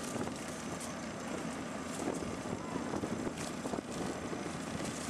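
A motor running steadily, with scattered light knocks and clatter over it.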